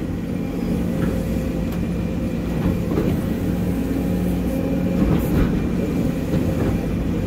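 Excavator diesel engine running steadily, heard from inside the cab, as the hydraulics work the boom, bucket and thumb. A few faint knocks of stumps and brush being grabbed and shifted.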